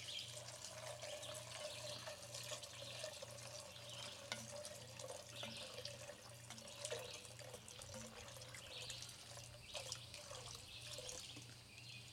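Water pouring in a thin stream from a plastic jug into a cast-iron Dutch oven of soaked pinto beans: a faint, steady trickle and splash that wavers and eases in the second half.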